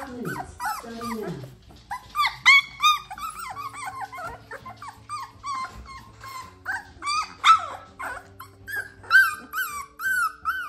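Young puppies whining and yelping: many short, high cries in quick succession, each sliding up and down in pitch, with a few lower, falling cries near the start.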